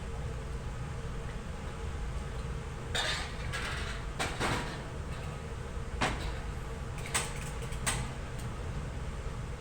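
Kitchen utensils and dishes knocking and clattering in a few short, scattered knocks over a low, steady background hum.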